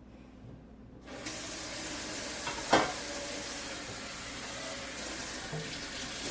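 Kitchen sink tap turned on about a second in, water running steadily into the sink, with a single sharp knock a little later.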